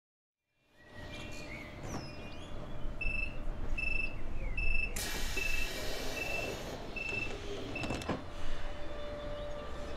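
Door-closing warning of a class 474 S-Bahn electric train standing at the platform: a short high beep repeated about twice a second for about five seconds, with a burst of hiss in the middle and a single knock about eight seconds in as the doors shut.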